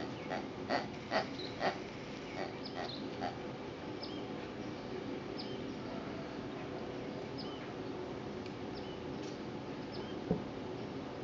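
A greyhound mouthing and nosing a plush toy, with a quick run of about seven short sounds in the first three seconds and a single low knock near the end. A bird gives high, short chirps about once a second over a steady background hum.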